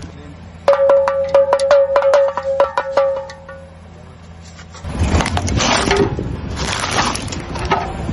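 Toy pellet drum twirled, its beads striking the drum head in a fast run of bright, pitched taps, about five a second, for about three seconds. After a short lull, a louder stretch of noise follows.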